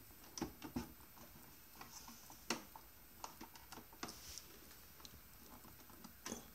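Scattered light clicks and taps as fingers handle the plastic control panel of an Epson 3760 inkjet printer, with a few sharper taps among them, the sharpest about two and a half seconds in.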